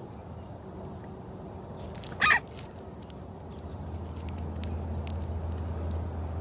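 A groundhog gives one short, sharp squeal-like hiss about two seconds in, over a steady low hum.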